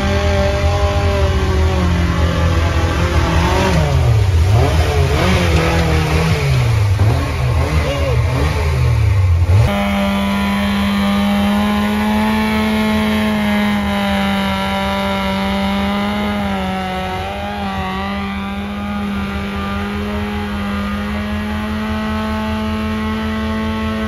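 Off-road 4x4's engine revving up and down again and again as it works through the terrain. About ten seconds in the sound changes abruptly to an engine holding a steady speed.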